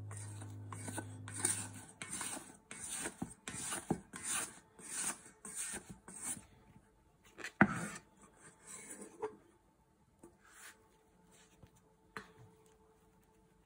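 Rhythmic rasping scrapes, about two a second, for some six seconds, then a single sharp knock and a few faint scrapes.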